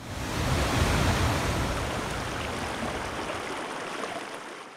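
Ocean surf: a wave rushes in with a deep rumble, swells within the first second, then slowly dies away.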